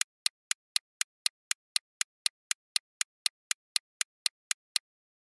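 Clock-tick sound effect serving as a countdown timer while the question waits for an answer: sharp, even ticks about four a second, which stop shortly before the end.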